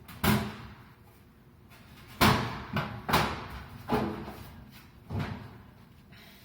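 Electric range's cover panels being put back in place: six sharp knocks and clacks at uneven intervals, the loudest about two seconds in.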